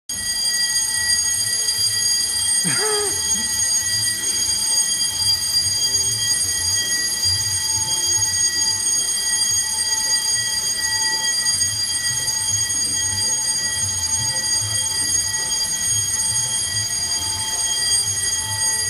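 Building fire alarm sounding without a break during a fire drill: one steady, unchanging tone throughout.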